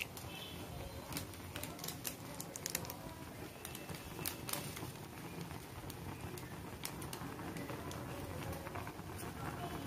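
Maggi masala sachet being shaken and tapped over a pot of boiling noodles: a string of light, irregular ticks over the steady bubbling hiss of the boiling pot.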